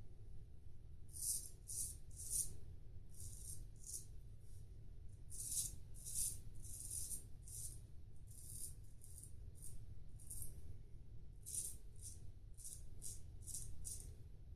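A CV Heljestrand no. 7 straight razor shaving through lather and stubble in short strokes, each pass a crisp rasp. The strokes come in quick runs of a few a second, with short pauses between runs.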